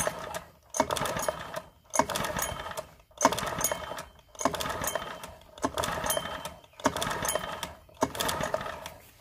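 Parsun 4 four-stroke outboard cranked over by its pull-start recoil rope, about eight pulls a little over a second apart. The engine turns over without firing because the spark plug is out and a compression gauge is screwed into its hole for a wet compression test.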